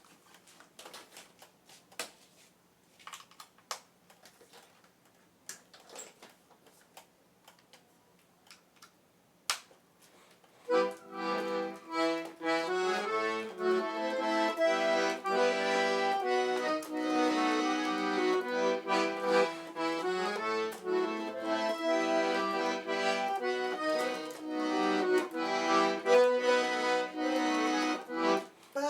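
A few scattered clicks and knocks, then about ten seconds in an accordion starts playing a northeastern Brazilian tune, with melody over chords.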